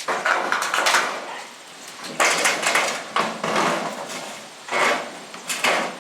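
Steel building panels clattering and rattling as they are handled, in several bouts of metallic knocking.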